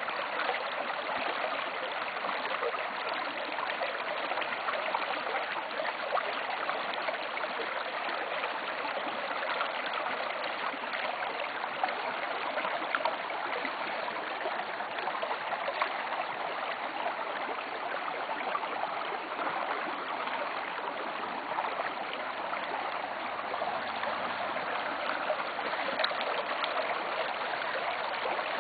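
Small, partly iced-over stream babbling over rocks: a steady, even rush of running water with no breaks.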